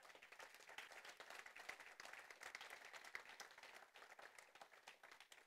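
Faint applause from a church congregation, many scattered hand claps. It swells over the first couple of seconds and dies away near the end.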